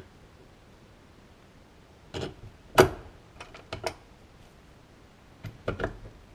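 Scattered sharp metal clicks and knocks from a Honda Cub-type engine's aluminium crankcase half being pressed down over the gearbox shafts. The loudest knock comes about three seconds in, followed by a quick run of light ticks, with another few knocks near the end.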